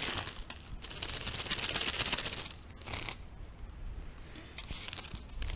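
Rustling and a string of light clicks from small plastic RC parts being handled, with a denser rustle about two seconds in.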